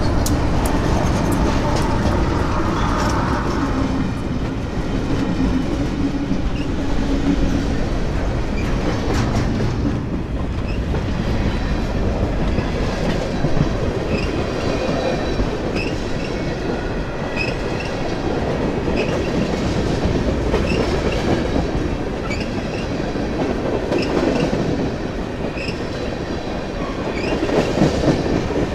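Freight train rolling past: steady rumble of the cars, with wheels clicking over rail joints and short high wheel squeaks now and then.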